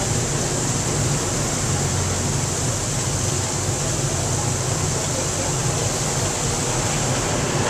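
Steady hiss of a fountain's water jet splashing into its basin, mixed with the low hum of passing road traffic, a motorcycle and pickup trucks.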